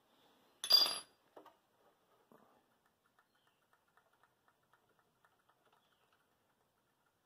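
A single sharp metal clink with a brief ringing about a second in, then soft handling sounds and faint light ticking while the oil pressure sending unit is unscrewed by hand from the engine.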